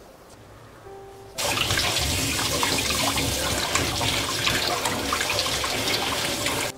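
Tap water running hard into a stainless steel bowl, splashing over a burdock root being rinsed and rubbed by hand. The water starts suddenly about a second and a half in and cuts off just before the end.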